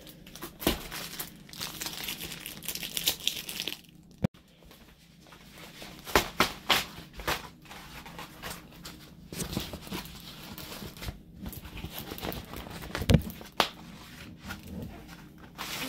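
Plastic packaging crinkling and rustling as a diamond painting kit is unwrapped and its rolled, plastic-film-covered canvas is pulled out and flattened, with irregular crackles and a few sharp ticks.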